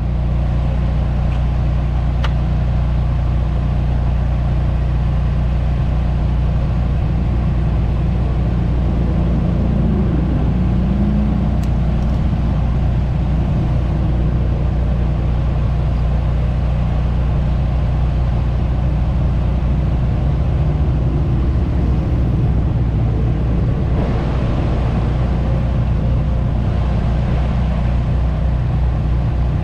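An engine running steadily at a constant speed, a low, even drone that does not change.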